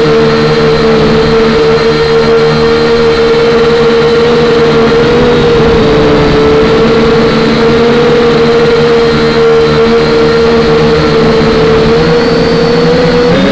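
Loud, steady whine of a small radio-controlled aircraft's motor and propeller, picked up close by the camera riding on it. The pitch wavers slightly near the end.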